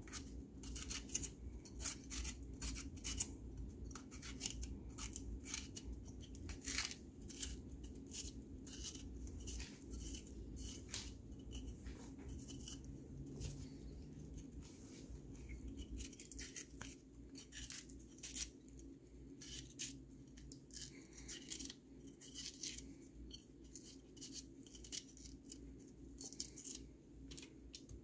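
A kitchen knife slicing through a red bell pepper held in the hand: a quick, irregular run of crisp cuts, several a second, over a low steady hum.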